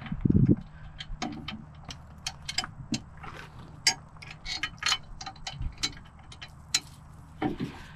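Irregular metal clicks and clinks of bolts and hardware being handled and fitted on a steel hitch-mounted bike rack, with a heavier thump right at the start.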